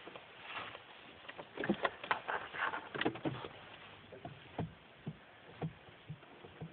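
Rattling and clicking of a car key being turned in the ignition, followed by a few separate clicks about half a second apart. The 1.9 TDI diesel is not running, with only the ignition on.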